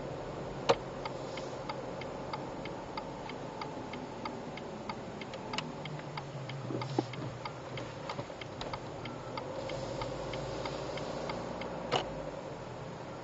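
An abnormal noise from an F31 car: a regular ticking of about three clicks a second over a steady hum, with a few louder clicks, twice near the start and end and once in the middle.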